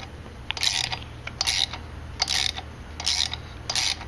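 Socket ratchet turning a long screw into place: five short bursts of pawl clicking, a little under a second apart, one on each back-swing of the handle.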